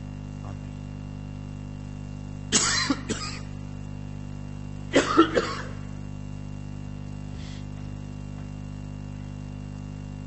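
Two short bouts of coughing, about two and a half and five seconds in, each a few quick coughs, over a steady low hum.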